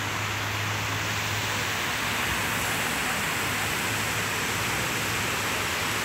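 Steady rushing outdoor noise with a low, even hum underneath and no distinct events.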